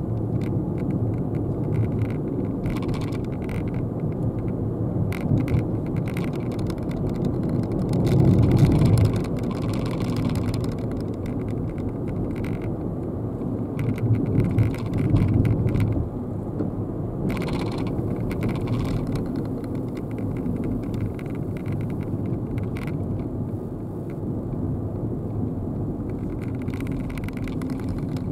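Cabin noise of a Nissan Dayz turbo kei car on the move, its 660 cc three-cylinder turbo engine and tyres giving a steady low rumble. The rumble swells louder about 8 seconds in and again from about 14 to 16 seconds, with scattered light knocks throughout.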